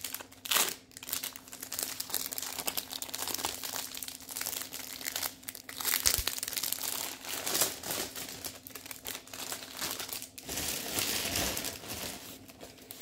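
Plastic packaging crinkling and rustling as a diamond painting kit and its bagged drills are handled, with louder crackles now and then.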